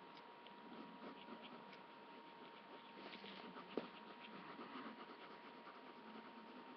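Faint scratching of a drawing tool on paper in many short strokes, with one sharp click a little before four seconds in. A thin steady tone runs underneath.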